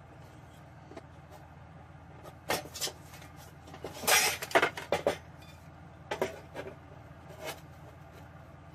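Thin sheet-steel computer case panel and a steel square clanking and scraping as they are moved and set against each other, in several short clattering bursts, the loudest about four seconds in.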